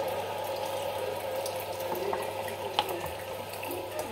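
Hot water pouring in a steady stream from an electric kettle into a pot of yogurt as it is stirred, with a few light knocks.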